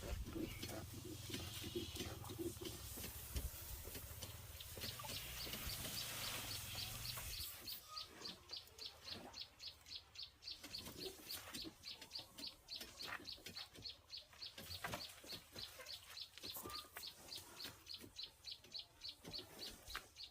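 Chickens clucking, with a high chirp repeating about three times a second from about five seconds in.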